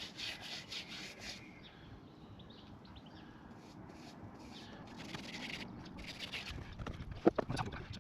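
Tyre lube being applied around a motorcycle tyre's bead with short, repeated rubbing strokes, in two runs, followed by a few sharp knocks near the end.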